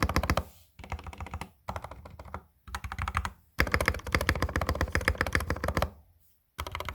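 Fast typing on an Epomaker GK68XS mechanical keyboard: rapid runs of keystroke clicks in bursts of about a second, with a longer run in the middle, then a short pause before typing resumes near the end.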